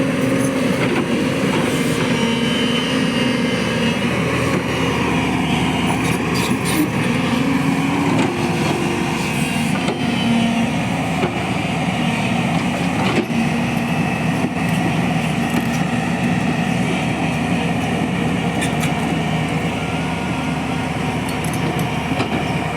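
Diesel engine of a JCB excavator running steadily, its pitch rising and falling a little, with a few sharp knocks and scrapes.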